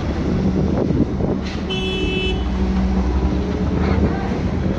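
Heavy construction machinery engines running with a steady low drone, and a short, high horn toot about two seconds in.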